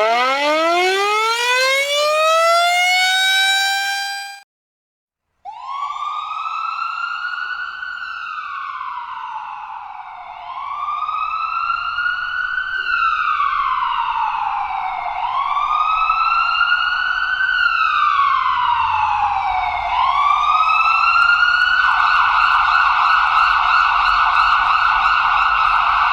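A siren winding up, rising steadily in pitch for about four seconds, then cut off. After a second of silence an emergency-vehicle siren wails, rising and falling about every five seconds, and about 22 seconds in it switches to a fast yelp.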